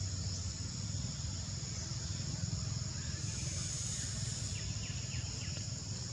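Steady high-pitched insect chorus over a low, even rumble, with a few faint short chirps about five seconds in.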